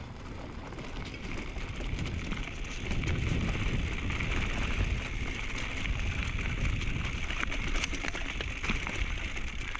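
Intense M6 downhill mountain bike being ridden over a dirt trail, heard from a helmet-mounted camera: wind rushing over the microphone and tyre rumble, with scattered clicks and rattles of the bike over rough ground. It gets louder from about three seconds in.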